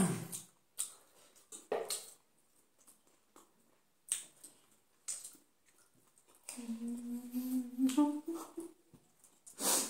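Eating at a table: scattered short clicks of forks and spoons against plates, with chewing, then a hummed 'mmm' of about two seconds that rises in pitch at its end, and a short loud slurp of noodles near the end.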